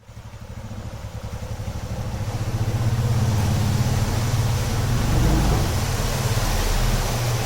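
Royal Enfield Bullet's single-cylinder engine running as the motorcycle rides, with a rapid low pulsing, growing louder over the first few seconds and then holding steady.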